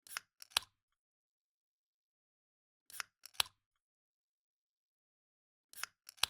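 Aluminium soda can being opened by its pull tab, three times about three seconds apart: each a short crack and hiss followed half a second later by a sharper click.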